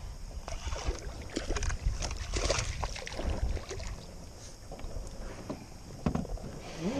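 Wind rumbling on the microphone, with irregular knocks, scrapes and splashy handling noises from fishing on a small boat. These are thickest in the first few seconds.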